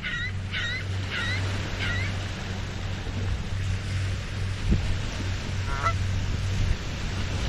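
Geese honking: a quick run of calls, about two a second, for the first two seconds, then a single call about six seconds in. Small lake waves lap the shore underneath, with a steady low hum.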